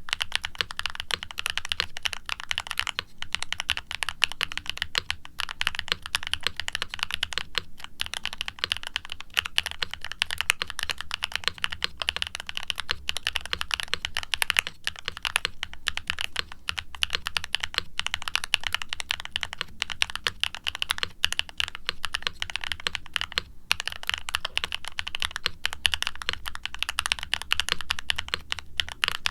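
Continuous fast typing on an e-coated aluminum Novelkeys NK87 mechanical keyboard with HMX x Siliworks Nap linear switches on a carbon fiber plate and double-shot ABS keycaps: a soft clack, broken by a few momentary pauses.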